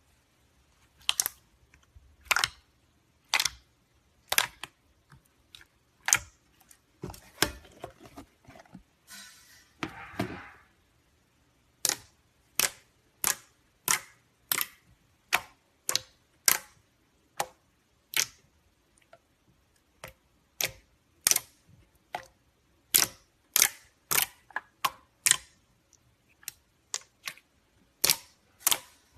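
Slime being squeezed and poked, giving sharp popping clicks as air pockets burst, about one or two a second, with a short crackling stretch about nine seconds in.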